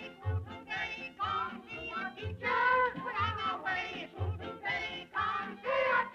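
1930s cartoon soundtrack song: a chorus of voices singing a jaunty tune over a small orchestra, with a bass note marking a steady beat about twice a second.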